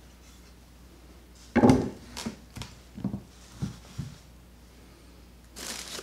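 A string trimmer shaft with its head is set down on a wooden workbench. There is a loud knock about a second and a half in, then a few lighter knocks as it settles and is handled. Plastic wrapping rustles near the end.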